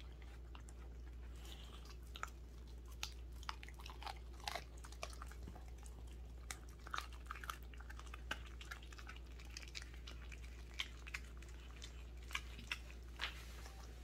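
A Welsh corgi chewing and biting into a whole raw chicken: irregular wet crunches and clicks of teeth on meat and bone, over a steady low hum.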